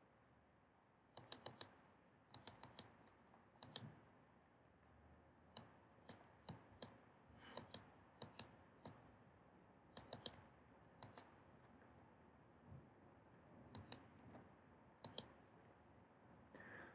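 Faint computer mouse clicks, scattered irregularly, many in quick pairs and small clusters like double-clicks.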